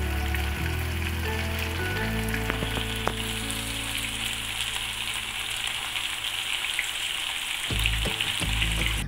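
Masala-coated chicken pieces and curry leaves deep-frying in hot oil in a pan: a steady sizzle, with a few sharp pops about two and a half to three seconds in.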